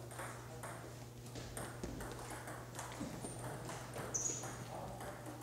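Table tennis balls clicking off bats and tables in quick, uneven knocks from rallies at several tables, over a steady low hum. A brief high squeak comes about four seconds in.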